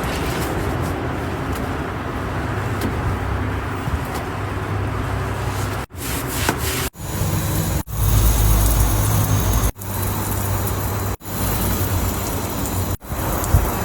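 Water spraying from a garden hose onto window glass: a steady hiss of spray that cuts off abruptly and starts again several times.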